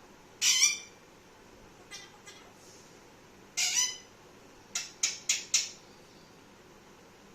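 Pet parrot squawking: two harsh calls a few seconds apart, then four short, sharp squawks in quick succession.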